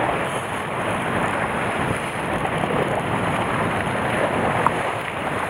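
Sea surf washing and churning over rocks at the shoreline, a steady rushing noise.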